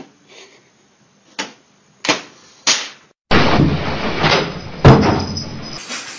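A few sharp clicks, then a cat leaping into window blinds: a sudden loud crash and rattle of the slats, with a heavier thump nearly two seconds in, dying away.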